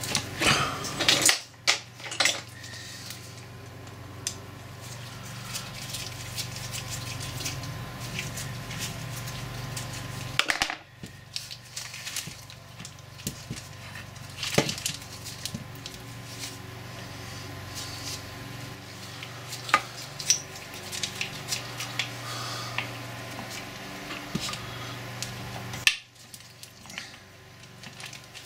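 Steel parts of a Boxford lathe apron being handled and fitted into its cast-iron housing: irregular clinks and knocks of metal on metal, a quick run of them in the first couple of seconds and single sharper ones later, over a steady low hum.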